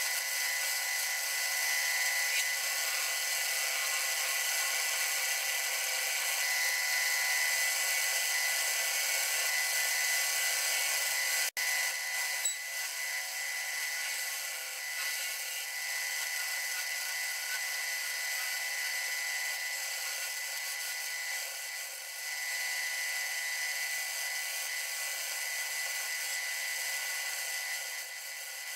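Wood lathe running with a steady, high-pitched whine made of several level tones. It drops out for an instant about a third of the way in.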